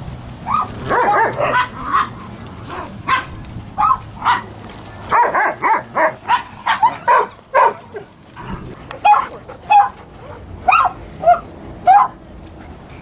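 Dogs barking and yipping in short, repeated calls, coming thickest about five to eight seconds in.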